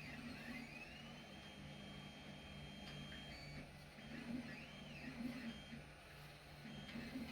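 Wanhao i3 3D printer's stepper motors whining faintly as the print head runs passes around the outer walls of a PLA print. The whine rises and falls in pitch again and again as the head speeds up and slows down, over a steady low hum.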